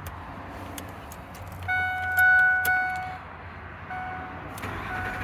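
Keys clicking at the ignition of a 2007 Ford F-150, then the dashboard's electronic chime. The chime holds one steady tone for about a second and a half, then sounds again in short repeated beeps before the engine cranks.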